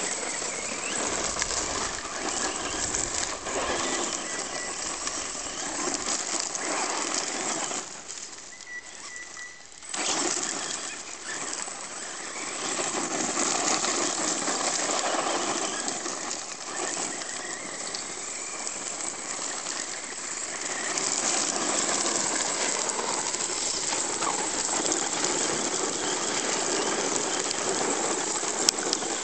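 Electric RC monster truck (HSP Brontosaurus on a 7.4 V LiPo) driving on loose gravel, its tyres spinning and spraying gravel as the power is feathered on and off. The noise drops to a lull for about two seconds around eight seconds in, then picks up again.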